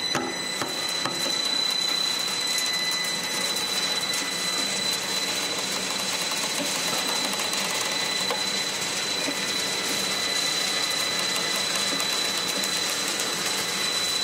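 Double roller press granulator running, its dimpled rollers compacting fertilizer powder: a steady mechanical clatter with fine crackling and a constant high-pitched whine.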